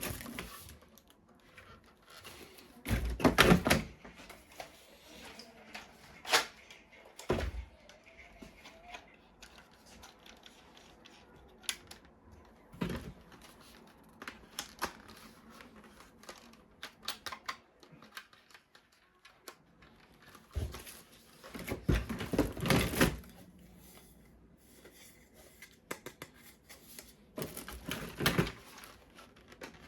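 Hard plastic toy guns and parts being handled: scattered clicks and taps, with bursts of rapid clattering about three seconds in, again around twenty-two seconds, and near the end.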